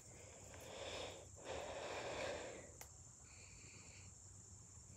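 Two heavy breaths close to the microphone, each about a second long, in the first two and a half seconds.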